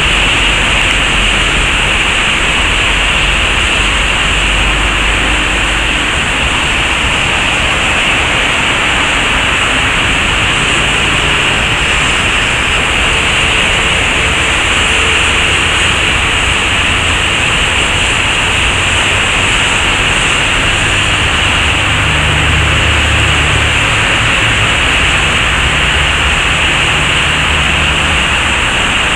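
Steady, loud rush of a creek in flood, its churning brown water running high under a road bridge, nearly up to the deck. A low rumble comes and goes underneath.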